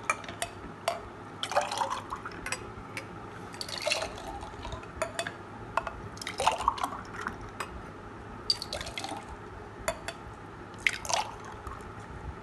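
Iced chocolate milk poured back and forth between a glass and a mug to mix it: several splashing pours, with ice cubes clinking against the glass.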